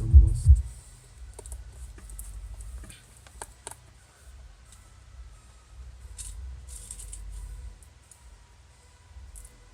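Small scattered clicks and short light scrapes of tools and plastic parts being handled while a smartphone is reassembled, after a bass-heavy music beat that stops about half a second in.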